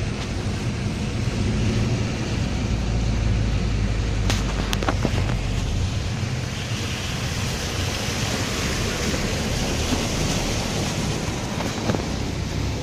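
Car driving through floodwater, heard from inside the cabin: the engine runs under a steady rush of water and road noise. About halfway through a brighter hiss of spray rises as the car moves out into the flooded stretch, with a couple of short clicks just before.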